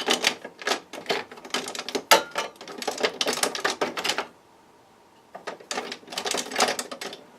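Hands rummaging among small tools and containers on a workbench, a quick run of clicks and clatters, a pause of about a second, then more clattering. It is the sound of a search for a misplaced container of soldering flux.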